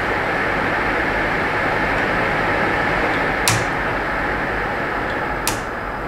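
Inline duct fan running with a steady rush of air, and two sharp clicks about two seconds apart from the Sentera STR1 transformer fan speed controller as its knob steps the autotransformer from one speed tap to the next. The fan's sound drops a little after the second click.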